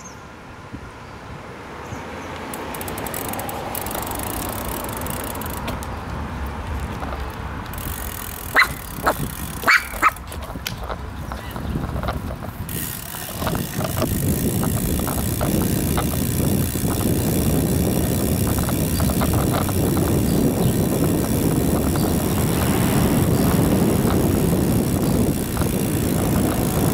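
Wind on the microphone and the tyre rumble of a bicycle rolling on a paved street, picked up by a camera on the handlebars; the noise grows louder and steadier about halfway through as the bike gets moving. A few short, sharp sounds stand out about a third of the way in.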